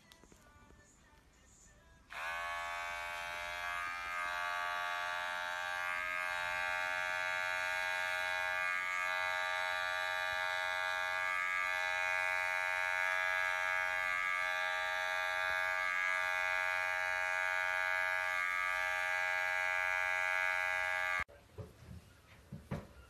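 Electric pet hair clipper running with a steady, high buzzing hum while clipping a cat's fur. It starts about two seconds in, dips briefly a few times, and cuts off suddenly near the end.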